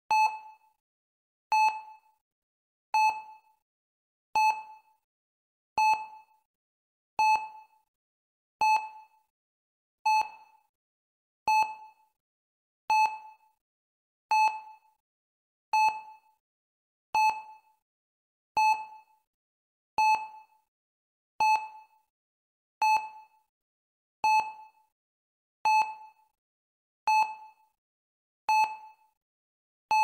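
Hospital heart rate monitor beeping steadily, one short beep about every second and a half, each fading quickly. Each beep marks a heartbeat, and the even spacing signals a steady, regular pulse.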